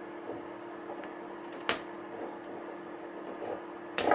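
Wire cutters snipping through heavy-gauge wire: two sharp snips, one about a second and a half in and one near the end, over a steady electrical hum.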